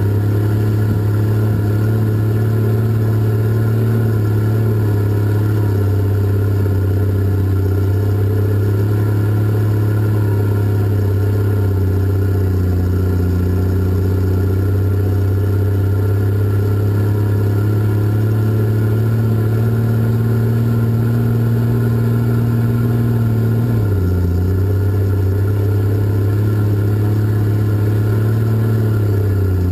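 Cat 627 scraper's twin diesel engines running hard at a steady speed, heard from inside the cab. The engine note drops about 24 seconds in and again near the end.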